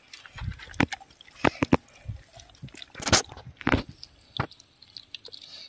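Wet squishing and smacking of hands rubbing and packing tandoori masala marinade into cut chicken pieces: irregular squelches and slaps, the loudest a little after three seconds in.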